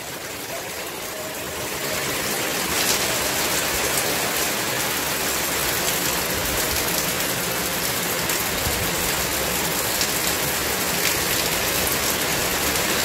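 Heavy rain pouring down steadily in strong wind, a thick even hiss of downpour. It swells about two seconds in, then holds steady.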